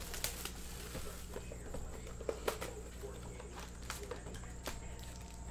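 Scattered light taps and clicks of cardboard trading-card boxes being handled and set down on a table, over a steady low electrical hum.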